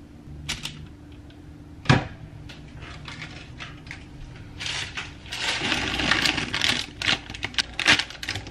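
Kitchen handling sounds: a few sharp clicks of a metal spoon against a glass measuring cup of melted chocolate, the loudest about two seconds in. Then, from about halfway, a dense stretch of clattering and crinkling as a plastic bag of chocolate chips is handled, with sharp rattling clicks near the end.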